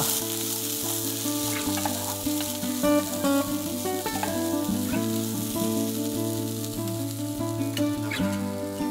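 Diced sweet corn and vegetables sizzling as they fry in a non-stick pan, stirred with a spatula. Steady background music plays underneath.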